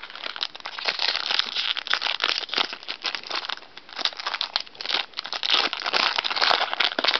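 Foil wrapper of a Bowman Chrome baseball card pack crinkling and crackling as it is torn open and pulled off the cards.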